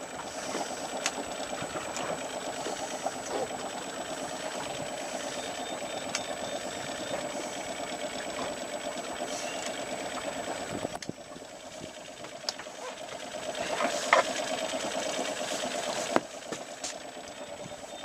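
Spinning fishing reel being cranked in a steady mechanical whirr as a hooked fish is reeled in on a bent rod. The whirring stops for a couple of seconds about eleven seconds in and then resumes, with a few sharp clicks along the way.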